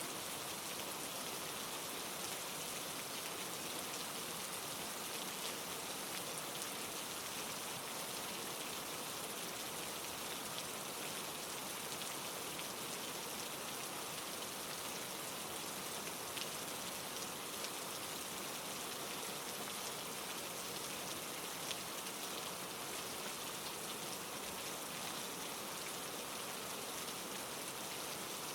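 Steady rain falling, an even hiss of many drops with faint individual drop ticks, unchanging throughout.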